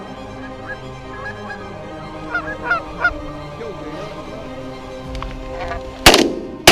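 Canada geese honking a few times as they come in to the decoys, then a shotgun blast near the end, followed at once by a second.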